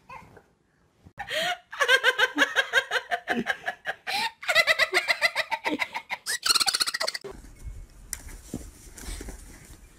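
A person laughing hard in quick, high-pitched bursts for about six seconds, starting about a second in; after that only a low rumble.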